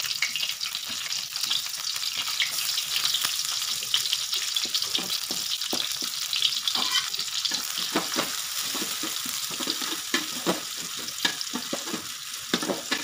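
Sliced shallots and garlic sizzling in hot oil in a wok as they are sautéed until soft. From about five seconds in, a metal spatula scrapes and knocks against the wok as they are stirred.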